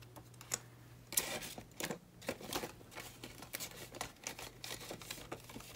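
Paper banknotes and clear plastic cash envelopes rustling and crinkling in a string of short, quick handling sounds as binder pages are turned and bills are pulled out.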